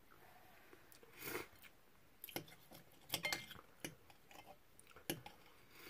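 A metal fork and knife clicking and scraping against a plate as a fried egg is cut: a few faint, scattered clinks and scrapes.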